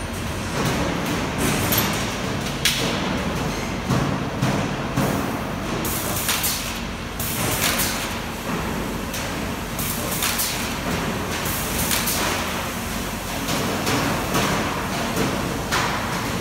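Sheet-metal duct coil line running: steady machine noise broken by repeated clunks and short bursts of hiss, about one every one to two seconds.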